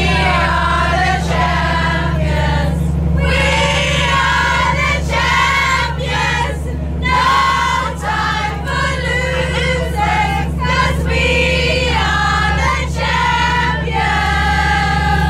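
A group of women singing together, several voices at once, with short breaks between lines, over the steady low drone of a boat's engine.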